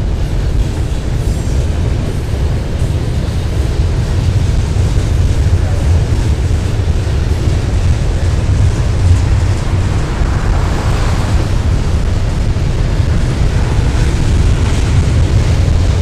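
Double-stack intermodal container train rolling past close by: a loud, steady low rumble of wheels on rails, with a higher rushing noise swelling briefly about ten seconds in.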